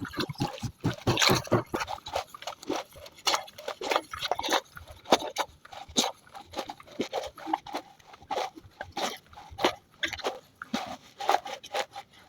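Hands scrubbing and squeezing bitter leaf in a little water, a wet squelching and scraping in quick, irregular strokes.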